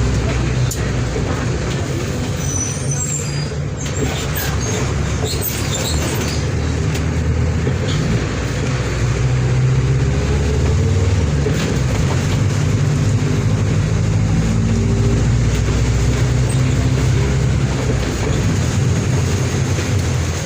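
Diesel engine of a Mercedes-Benz OF 1722M bus running continuously, its pitch drifting slightly up and down.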